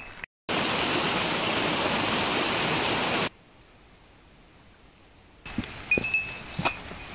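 A steady rushing noise for about three seconds, then a quiet stretch. Near the end a small bell jingles with short bright rings over scattered footstep clicks, the sound of a hiker walking with a bell.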